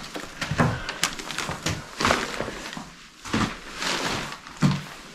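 Irregular footsteps and scuffs on a floor strewn with rubble and debris, about six or seven uneven steps.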